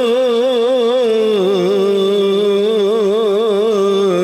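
A man's voice holding one long sung vowel with a wide vibrato, stepping down to a lower note about a second and a half in and sustaining it: the drawn-out melismatic line of a marsiya recitation.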